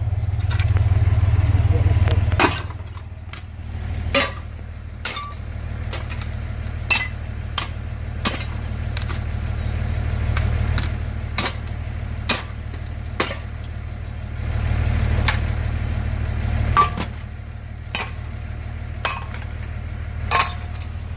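A hammer and chisel striking porcelain in irregular sharp knocks, chipping into a toilet's hardened calcium deposits. Under them runs a steady low engine hum.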